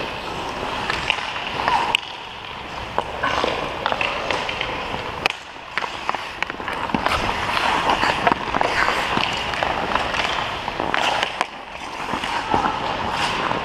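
Ice hockey skates scraping and carving on rink ice, with frequent sharp clacks of a hockey stick blade on the puck.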